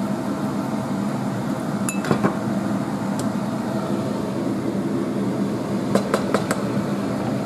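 Wooden spoon stirring thick dhal in a stainless steel saucepan, with light clinks and knocks of the cookware: a couple about two seconds in and a quick cluster around six seconds. A steady hum runs underneath.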